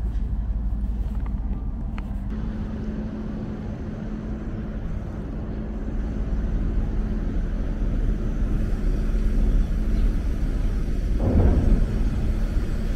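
Steady low rumble with a constant hum from the docked car ferry's running machinery. About eleven seconds in, a truck engine swells louder over it.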